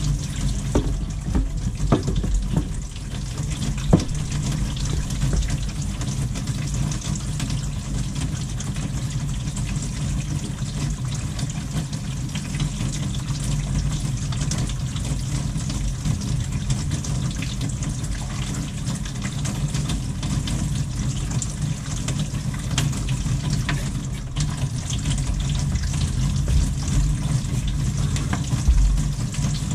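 Kitchen faucet running steadily, water pouring into the sink and down the drain, heard from inside the cabinet beneath it. A few knocks come in the first few seconds, the loudest about four seconds in.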